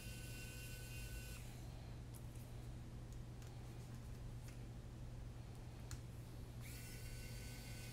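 Faint clicks of a hex driver working the screws of a small quadcopter's frame, over a steady low hum. A faint high whine cuts out about a second and a half in and comes back near the end.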